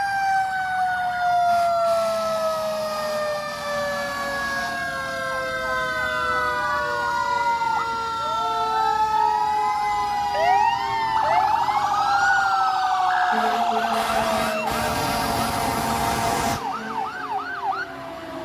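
Fire truck sirens as the apparatus pull away. One siren winds slowly down in pitch the whole time, while other sirens sweep up and down and pulse rapidly over it in the middle. A louder blast lasting about three seconds comes past the middle.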